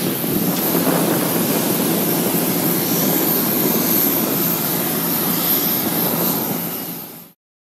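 Steady jet turbine noise of airliners on an airport apron, a loud even rush with a high whine over it, which cuts off suddenly shortly before the end.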